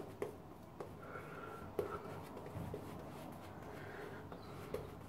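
Omega shaving brush working Wilkinson Sword soap lather over the face: a faint, soft scrubbing of bristles on skin, with a few light ticks.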